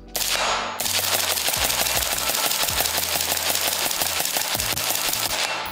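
Suppressed Type A Rifle Company 15.1-inch SPR with an Otter Creek OCM5 suppressor, fired in a rapid string of shots that run together into a steady clatter and stop about five and a half seconds in.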